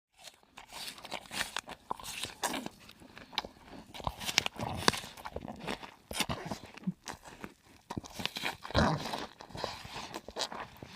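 Close-up mukbang eating sounds: rice and dal being chewed, with wet mouth clicks and smacks coming irregularly several times a second.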